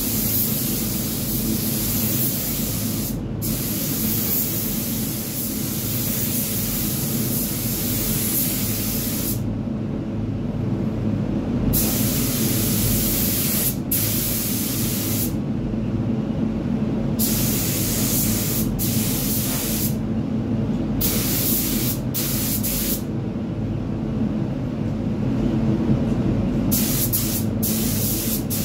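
Gravity-feed paint spray gun hissing as it sprays white paint onto a car bumper, cutting in and out as the trigger is pulled and released: one long pass for about the first nine seconds, then shorter bursts with pauses of a second or more. A steady low hum runs underneath.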